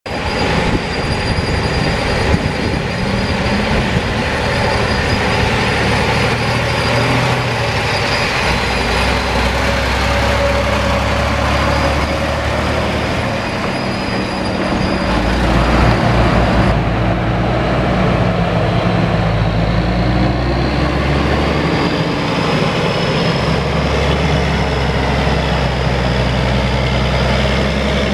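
Heavy diesel dump truck engines running under load, the low engine note shifting up and down several times as they work.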